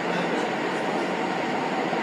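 Sendai Subway Tozai Line train running at speed through a tunnel, heard inside the car as a steady rumble of wheels and running gear.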